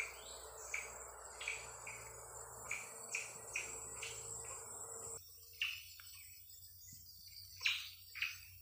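Rainforest insects buzzing in a steady chorus that cuts off abruptly about five seconds in. Over it come short crisp rustles, roughly two a second.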